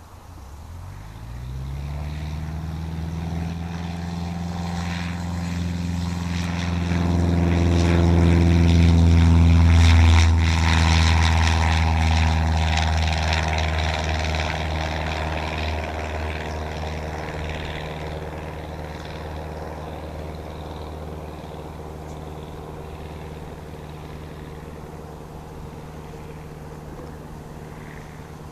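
A 1972 Cessna 150L's four-cylinder Continental O-200 engine and propeller throttling up to power in the first couple of seconds, growing louder as the plane passes close by about ten seconds in, with a slight drop in pitch, then fading steadily as it moves away.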